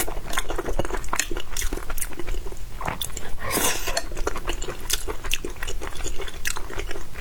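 Close-miked chewing of food: a dense, irregular run of small mouth clicks.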